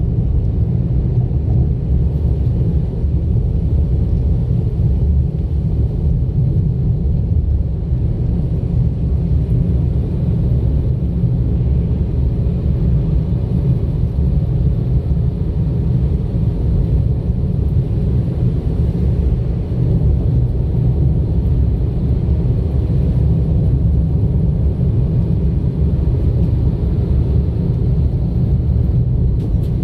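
Car driving at a steady pace: a continuous low rumble of engine and road noise, with no change in pitch or level.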